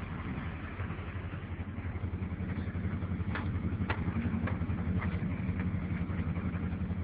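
Repo tow truck's engine running steadily with a low, even pulse. Four light clicks come about half a second apart in the middle.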